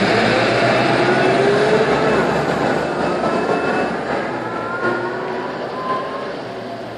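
Karosa B931 city bus pulling away under power, its diesel engine running loud with the whine of the ZF automatic gearbox rising in pitch several times as it works up through the gears. The sound fades as the bus moves off.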